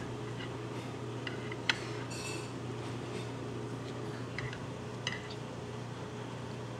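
Tableware clinking against dishes a few times over a steady low hum. The sharpest clink comes a little under two seconds in, followed by a brief ringing tone.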